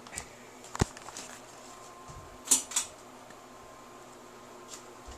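A few sharp clicks and knocks over quiet room tone: one about a second in and two close together about halfway through, with a faint steady tone underneath.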